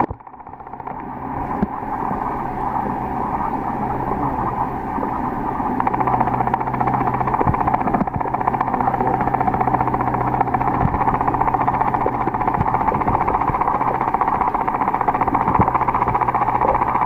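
Underwater ambience picked up by a submerged camera: a steady hiss with a low hum underneath and scattered faint clicks. It fades in over the first couple of seconds.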